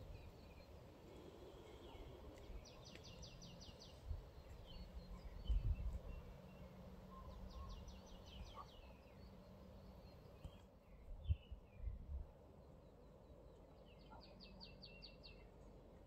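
Birdsong in quiet open air: a small songbird sings a short, fast trill of about ten high notes, three times, several seconds apart, while other birds chirp now and then. A few low thumps on the microphone, about five and eleven seconds in, are the loudest sounds.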